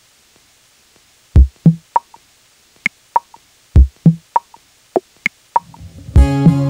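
Background music: a sparse beat of low drum thumps and sharp clicks, with fuller music of sustained notes coming in near the end.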